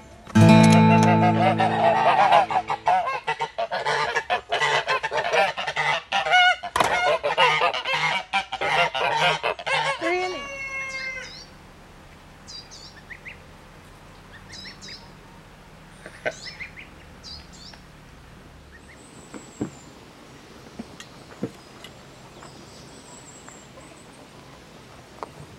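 A group of white domestic geese honking and cackling loudly and repeatedly, ending with a few falling honks about ten seconds in. After that it is much quieter, with only a few faint high bird chirps.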